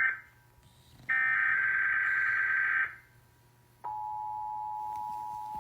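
Emergency Alert System header data: the tail of one warbling burst of high digital tones, then a full burst of almost two seconds. About four seconds in the steady two-tone EAS attention signal begins, announcing a warning broadcast.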